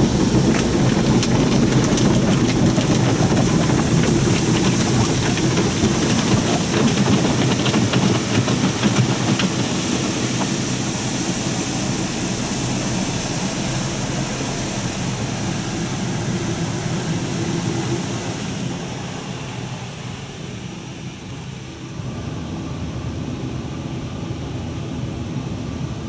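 A NuStar soft-touch in-bay automatic car wash working over the car, heard from inside the cabin: a loud, steady rush of water spray and machinery with many small taps of water striking the body and glass. The noise eases and dulls about two-thirds of the way through, then picks up again shortly after.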